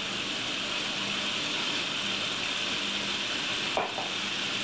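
Catfish pieces deep-frying in a pot of hot oil: a steady, even sizzle.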